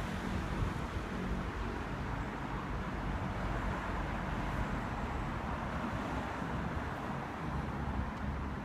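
Steady outdoor rumble of wind and road traffic, with no gull calls.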